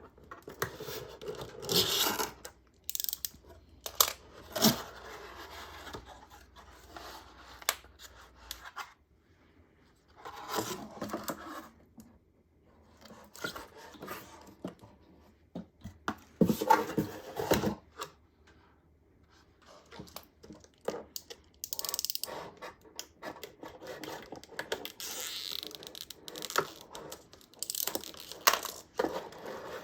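Packaging being handled and opened: intermittent scraping, rustling and tearing, with sharp clicks and taps, in irregular bursts with short quiet gaps.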